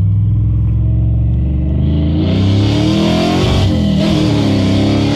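Cammed Vortec engine in an OBS Chevy pickup running on a fresh Summit Racing Max Performance carburetor, heard from inside the cab on a test drive. It cruises steadily, then accelerates hard about two seconds in, its note rising and getting louder. The note dips briefly, as at a gear change, then climbs again.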